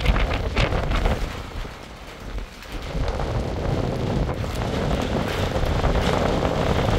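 Stormy wind buffeting the microphone with a heavy low rumble, over a steady hiss of rain that grows louder about three seconds in.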